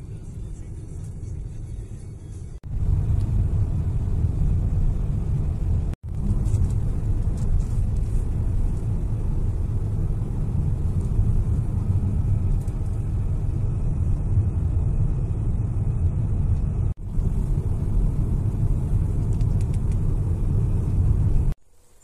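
Steady low road rumble of a car driving, heard from inside the cabin: engine and tyres on the road, broken by a few abrupt cuts where the clips change.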